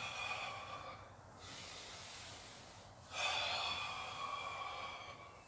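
A man breathing audibly through his open mouth while sinking into and holding a deep squat: a long exhale trails off in the first second, then a second long breath comes about three seconds in.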